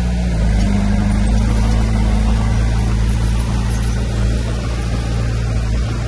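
Heavy diesel engine of earthmoving machinery running steadily under load with a deep, even hum.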